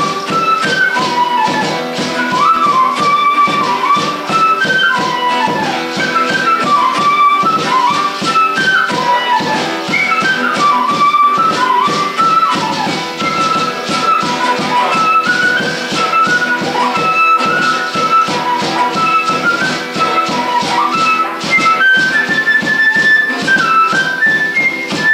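Live acoustic folk trio: a flute carries a lively, gliding melody over strummed acoustic guitar and steady beats on a large drum.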